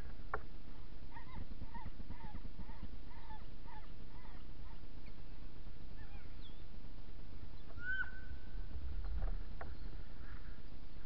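Sled dogs whining and yipping: a quick string of short high whimpers, about two a second, then a single longer drawn-out whine near the end.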